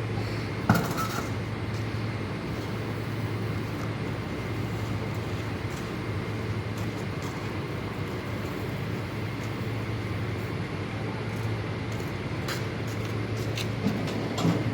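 Asphalt paving machinery running steadily with a constant low engine hum. A sharp clank comes about a second in, and a few knocks near the end.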